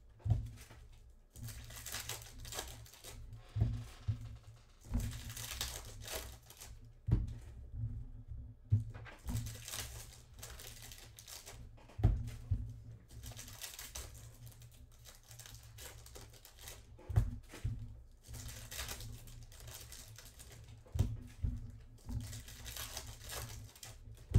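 Foil trading-card pack wrappers being torn open and crinkled by hand, in repeated rustling bursts, with a few soft knocks as the packs and cards meet the table.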